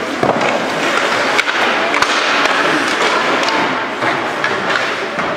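Ice hockey play: skates scraping on the ice and several sharp clacks of sticks and puck, over steady background noise.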